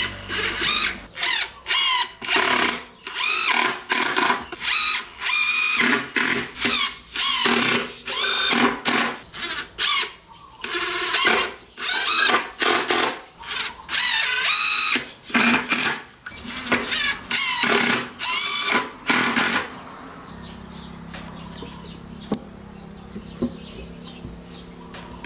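Cordless drill-driver driving screws in short trigger bursts, its motor whine wavering in pitch and cutting off sharply after each one, about twenty times in a row. The bursts stop about three-quarters of the way through, leaving a faint low hum.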